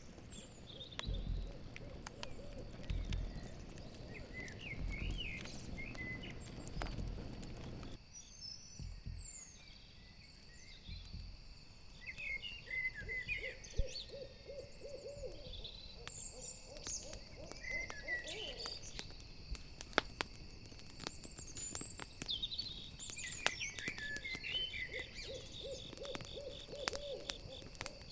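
Owl hooting in quavering series of low notes, in the middle and again near the end, over the crackle and pops of a campfire and a steady chorus of crickets, with scattered bird chirps. A low rumble in the first third cuts off suddenly.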